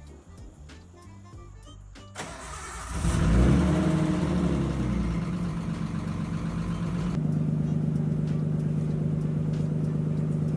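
Nissan Skyline R32's six-cylinder engine cold-starting: the starter cranks about two seconds in, the engine catches near three seconds with a brief flare in revs, then settles to a steady idle that drops lower about seven seconds in. This is a cold-start check for hydraulic lifter tick after a change to 10W60 oil.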